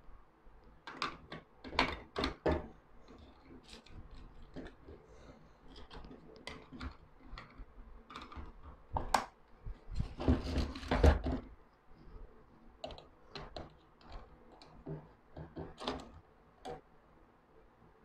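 Scattered plastic and metal clicks and knocks from hands handling a helping-hands magnifier soldering stand: its plastic battery base and its metal clip arms. There is a louder, busier run of knocks and rattling about ten seconds in.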